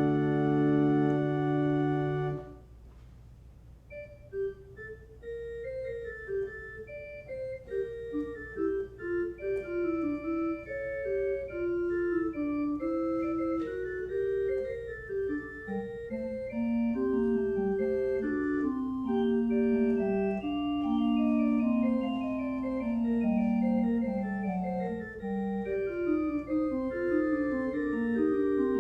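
Organ music: a held chord ends a couple of seconds in, and after a brief pause a single melodic line begins, joined by a lower moving part about halfway through.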